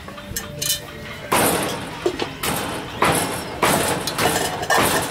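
A run of heavy knocks, like blows or chops, beginning about a second in and repeating at roughly two a second, each loud and short.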